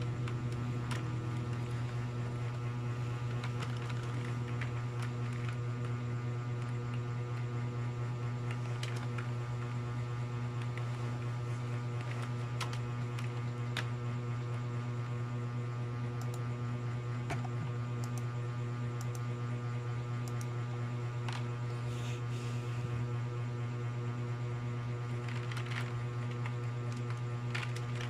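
Steady electrical mains hum, with scattered, irregular clicks of keys being typed.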